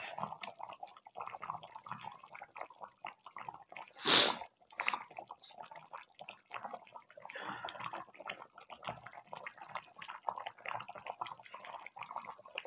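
Chicken in gravy bubbling as it simmers in a metal pan, a steady run of small pops and drips. About four seconds in there is one brief, much louder burst of noise.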